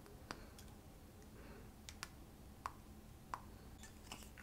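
Soft, wet lip smacks as lip gloss is worked over the lips: a few short clicks spaced out, about four clear ones.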